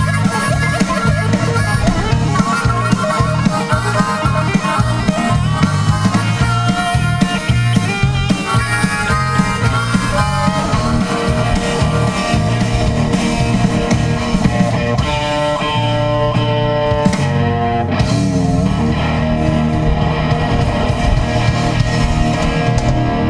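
Live rock band playing an instrumental stretch with electric guitars, bass guitar and drum kit, loud and steady throughout.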